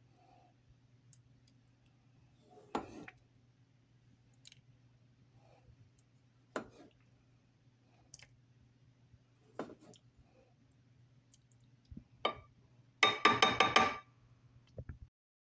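A serving spoon knocking and clinking against the pot and a ceramic serving dish as thick dal curry with mutton is spooned across, a single knock every few seconds, then a quick run of scraping clinks near the end. A low steady hum underneath.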